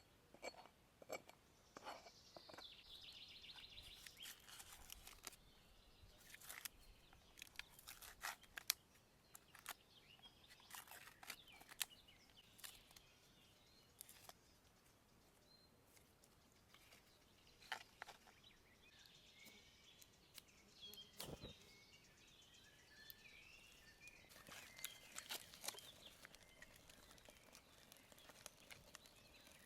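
Faint birdsong, short chirps that come in a cluster near the start and again in the second half, with scattered light clicks and crunches throughout.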